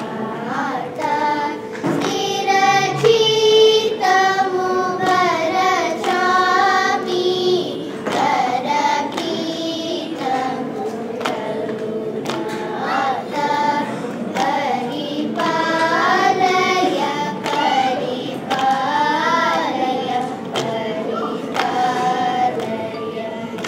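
A group of children singing a Carnatic song in unison over a steady drone from a Radel electronic shruti box, with light hand claps keeping the tala.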